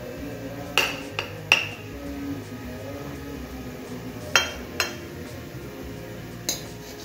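Metal spatula clinking against a ceramic plate while fried glass noodles are served onto it: three quick clinks about a second in, two more just past the middle, and one near the end.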